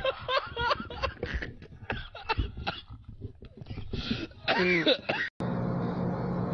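A person's voice in many short, irregular bursts, like coughing. About five seconds in it cuts out briefly, and a steady low hum follows.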